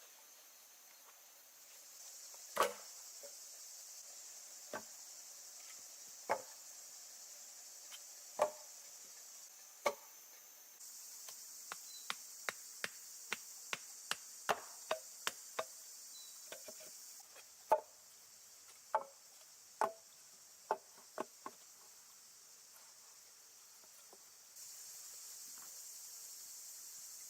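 Sharp chopping strokes of a blade on a block: a few spaced strokes, then a quick run of about three a second, then a last scattered handful. Steady insect chirring runs underneath.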